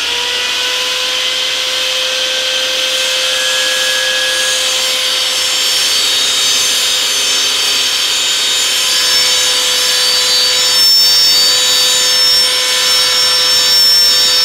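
Benchtop table saw running with a steady whine while its blade cuts lengthwise through a long board that is being pushed along the rip fence.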